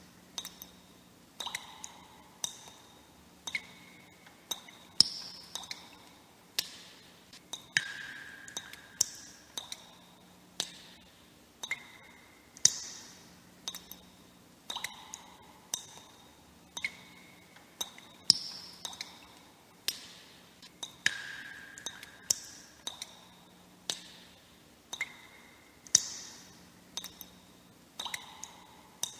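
Water droplets dripping one at a time, a little more than one drop a second in an uneven rhythm. Each drop is a sharp plink with a short ringing tone, some higher and some lower in pitch.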